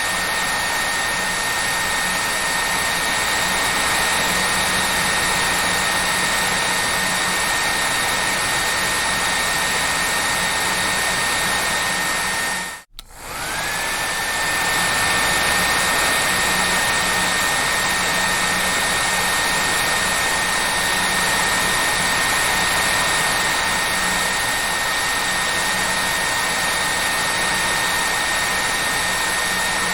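Hair dryer running steadily: a rush of air with a high whine over it. About halfway through it cuts out for a moment, then comes back with the whine rising back to pitch.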